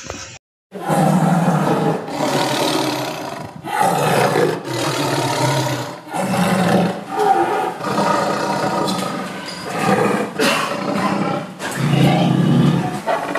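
Big cat roaring repeatedly: a series of loud roars, each about a second long, with short breaks between.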